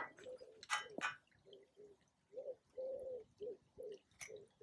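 A pigeon cooing: a phrase of repeated low-pitched coos, some short and some longer, beginning about one and a half seconds in. A brief rustling noise comes about a second in.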